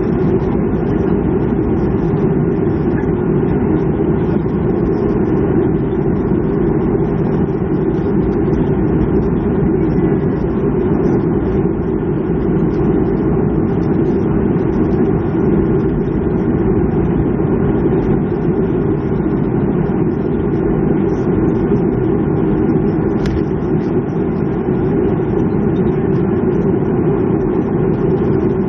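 Steady cabin noise inside a Boeing 737-300 airliner: an even, unchanging rumble of the running CFM56 jet engines and airflow.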